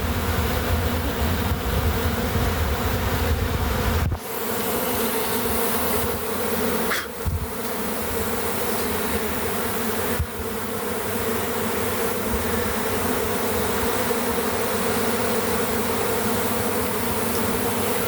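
A swarm of honey bees in flight, thousands of bees buzzing together in a dense, steady hum: the sound of a colony swarming out of its hive. The hum breaks off briefly about 4, 7 and 10 seconds in.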